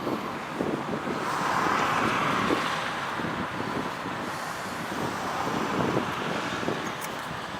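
Road traffic noise, with one vehicle passing and swelling between about one and three seconds in.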